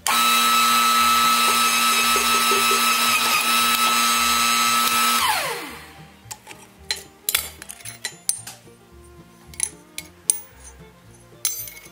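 A powered shop press's electric motor running with a steady whine while a flat steel strip is pressed into a U-shaped clip. About five seconds in it shuts off and winds down with a falling pitch. Light clinks of steel pieces being set on the steel bench follow.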